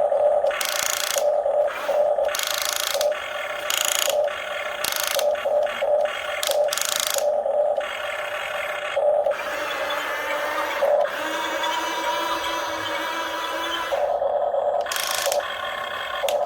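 Radio-controlled toy excavator's small electric motors and gears whirring in short on-off bursts as its arm, grapple and turntable are worked, with a steadier run of whirring in the second half.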